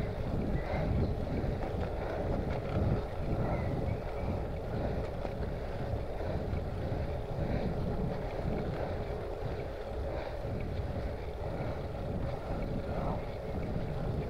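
Wind buffeting the microphone of a handlebar-mounted camera on a moving bicycle: a gusty low rumble, with a faint steady hum underneath.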